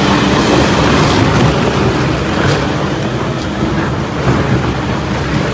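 Industrial tyre shredder working through big agricultural tyres, with its machinery running steadily: a low engine drone under loud, even mechanical noise.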